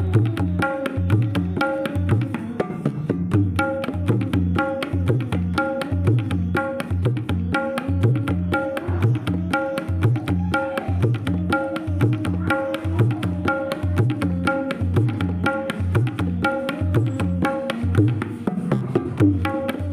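Instrumental background music with a steady, even drum beat under a melody.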